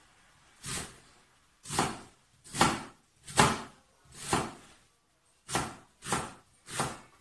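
Kitchen knife chopping onion on a cutting board: about eight separate strokes, roughly one a second, with a short pause about five seconds in.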